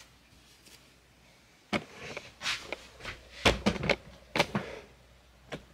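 Hands punching down and handling a large lump of risen bread dough on a wooden board: a run of thumps and knocks starting about a second and a half in, the loudest about three and a half seconds in, with one more knock near the end.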